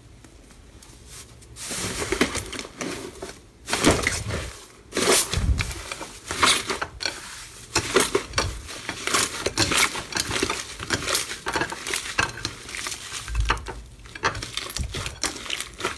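Hands squashing and tearing a crumbly blue slime coated in a layer of clear slime: dense crackling, popping and crunching with many sharp peaks, starting about a second and a half in.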